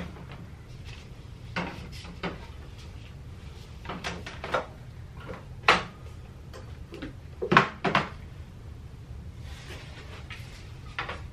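Plastic cleaning bottles and spray bottles being set down and shuffled on a chrome wire shelf: a string of irregular knocks and clacks, the loudest a little past halfway.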